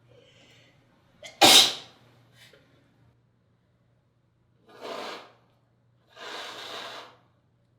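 A person sneezing once, loudly and suddenly, about a second and a half in, right after a short catch of breath. Two longer, quieter breathy sounds follow a few seconds later.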